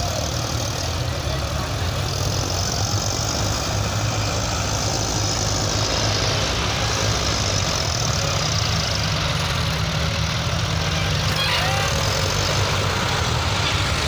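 Several diesel farm tractors running at once, a steady low engine drone that holds at an even level.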